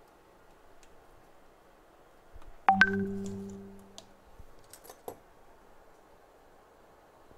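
A round object set down hard on the workbench: a sharp knock with a low ringing tone that fades over about a second and a half, followed a little later by a few light clicks of handling.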